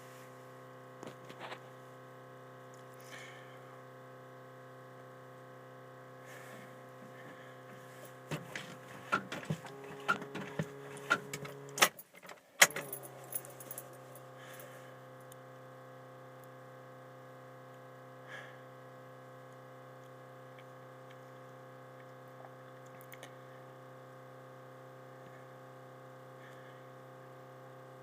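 Keys jangling and clicking at the ignition of a 1994 Dodge Ram 2500 for several seconds, ending in one sharp click, over a steady faint hum. No engine catches: the truck will not start in −30 °C cold.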